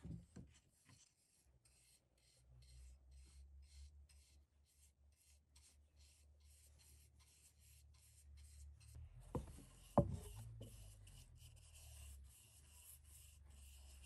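Faint swishing of a bristle brush spreading oil finish over a wooden spatula, in short strokes about three times a second. Two knocks about nine and ten seconds in, over a low steady hum.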